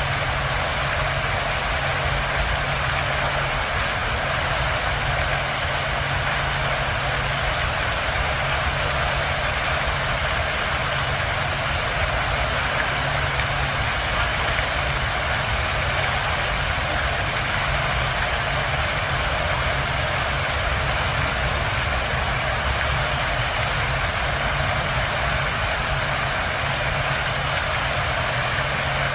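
Park fountain water splashing and rushing steadily, with a steady low rumble underneath.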